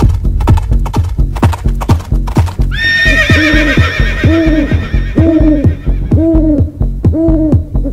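Electronic music: fast clicking percussion over a steady bass. About three seconds in, a high held tone enters, and then an arched, hoot-like note repeats about once a second.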